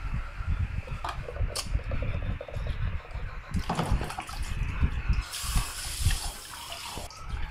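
Water sloshing and splashing as hands wash sweet potato leaves in an aluminium pot, with a burst of running water for about two seconds toward the end.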